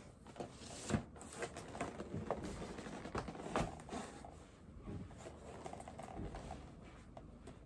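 Cardboard game box being handled and turned over in the hands: a run of irregular light knocks, taps and rustles.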